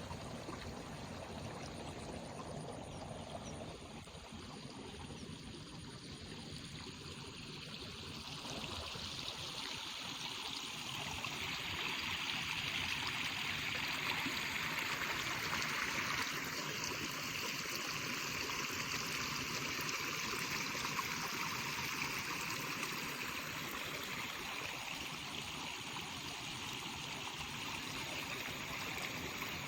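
Water flowing steadily, growing louder about ten seconds in and easing slightly near the end.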